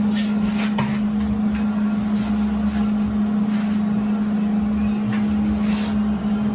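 A steady, unchanging low machine hum, with a few faint clatters of things being handled.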